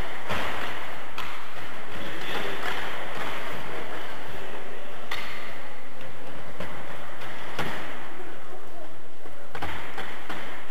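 Cycle-ball play: a steady rushing hiss of hall noise broken by about five sharp knocks, the ball being struck by the bicycles' wheels.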